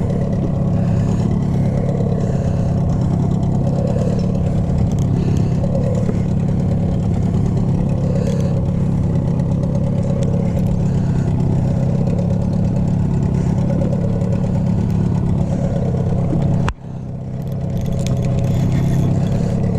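Small boat's outboard motor running steadily at an even speed. The sound drops out briefly about seventeen seconds in, then comes back.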